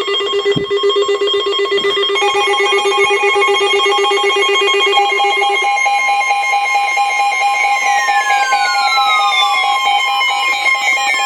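Several weather alert radios going off together with electronic alert tones. A pulsed beeping tone runs through the first half. About two seconds in, a steady high alert tone and a second pulsing beep join it, and from about two-thirds in there are repeated falling sweeps. The tones announce an incoming National Weather Service warning broadcast, here a special marine warning.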